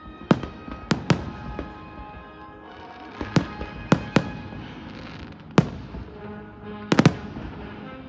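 Aerial fireworks bursting: about nine sharp bangs at irregular intervals, with a quick double bang near the end. Music plays steadily underneath.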